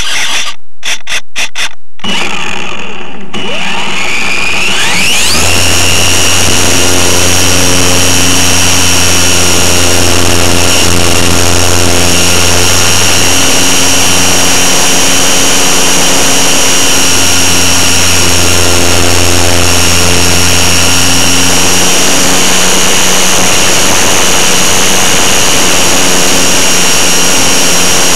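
Electric motor and propeller of a GWS Beaver RC model plane, heard through its onboard camera: a few sharp clicks, then the motor spools up with a rising whine. It settles into a steady high whine with rushing air through the flight.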